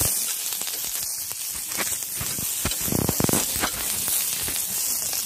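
Green chillies sizzling as they roast on a hot flat griddle (tava): a steady hiss with scattered crackles and pops, and a brief whine about three seconds in.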